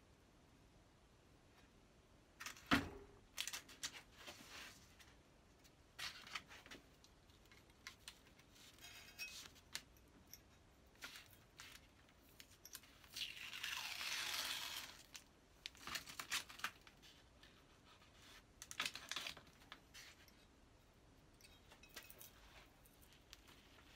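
Quiet, short rips and crinkles of masking tape being peeled off a freshly painted plane body, with one longer, steady peel about midway, and small scratches and taps from a pointed tool picking at the tape.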